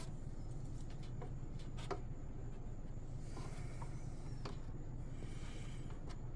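Faint handling sounds at a workbench: scattered light clicks and a couple of short rubbing scrapes over a steady low hum.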